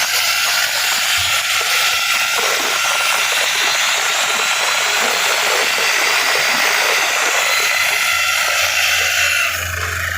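Compressor-driven pneumatic rock drill boring a blast hole into sandstone: a loud, steady hissing clatter of compressed air and rapid hammering. About nine and a half seconds in it drops off, leaving a lower steady hum.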